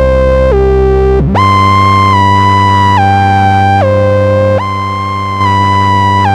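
Moog Sub 37 synthesizer playing the 'Tape Aged Pad' patch through reverb. A sustained low note sits under a slow melody that steps to a new pitch roughly every second, and about a second in the notes slide into a new bass note.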